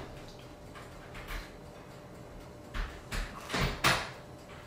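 Drinking from a glass of iced tea: after a quiet stretch, a few short sips and swallows come close together near the end.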